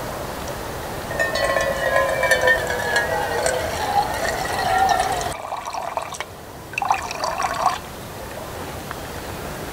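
Water running from a hose into a mug, its ringing pitch rising a little as the mug fills; it cuts off about five seconds in, and a second, shorter run of water follows near seven seconds.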